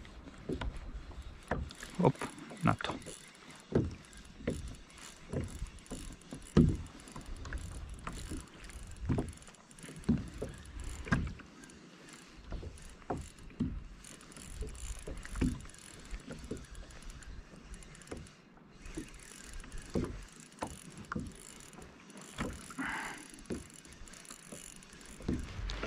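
Irregular knocks and clunks on a Hobie Compass fishing kayak's plastic hull and fittings, coming every second or so and varying in loudness.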